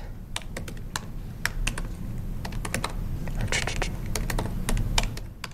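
Laptop keyboard typing: a run of quick, irregular keystrokes as code is entered.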